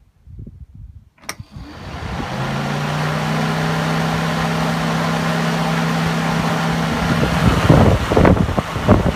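Holden VY V8 LS1 large electric radiator fan on its low-speed setting: a click about a second in, then the fan spins up over about a second and runs with a steady hum. Near the end its airflow buffets the microphone in irregular gusts.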